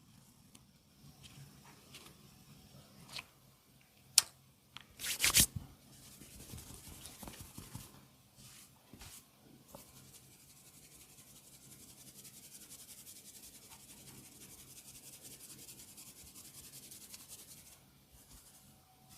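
Massage sounds close to the microphone: a sharp crack about four seconds in and a short loud burst of crackling a second later. Then, from about halfway through, a long steady fine rustle of fingers rubbing and working through hair.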